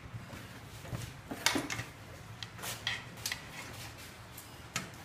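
Scattered clinks and knocks of dishes and utensils being handled, a few sharp ones, the loudest about a second and a half in.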